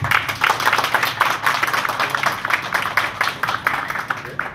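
A crowd applauding: dense hand-clapping that starts suddenly and stops after about four and a half seconds.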